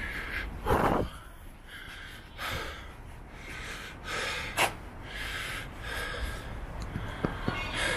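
A man breathing hard, with loud gasping breaths every second or two, out of breath from climbing 154 steps. A couple of short clicks near the end.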